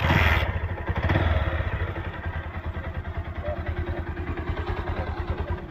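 Bajaj Pulsar single-cylinder motorcycle engine kick-started and catching at once, blipped up twice in the first second or so, then settling into a steady, evenly beating idle.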